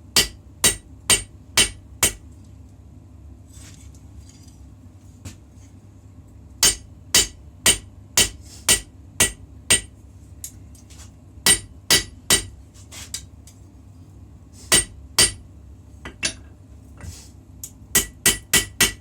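Hammer striking a puukko blade on an anvil in short irregular runs of ringing blows, about two a second, with pauses between runs, over a steady low hum.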